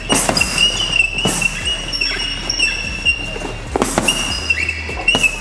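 Boxing gloves hitting a heavy punching bag: a handful of separate punches about a second or more apart, over background music.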